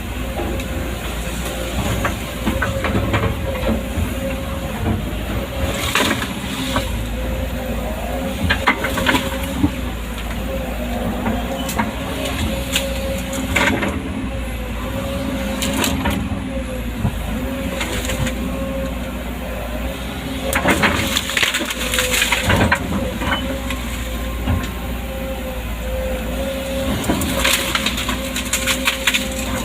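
Hydraulic excavator's diesel engine running steadily, with wood cracking and crashing every few seconds as branches and timber are broken and shoved about.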